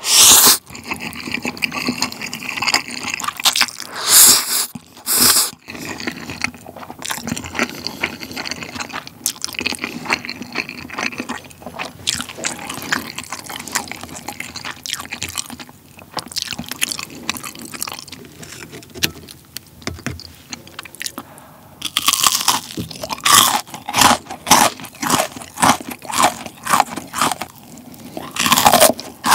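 Close-miked eating sounds: a loud slurp of black-bean jjapagetti noodles at the start, then chewing with a few more loud slurps. In the last several seconds comes a dense run of loud, crisp crunching bites.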